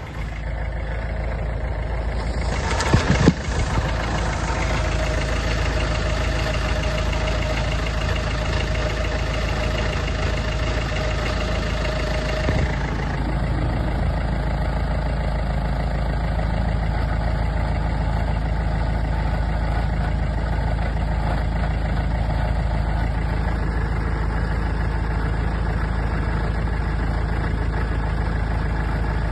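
Mercedes-Benz GLK 220 CDI four-cylinder diesel engine idling, with an odd noise the owner cannot place. A few loud knocks come about three seconds in, and a steady whine-like tone sits over the engine until about halfway, then stops.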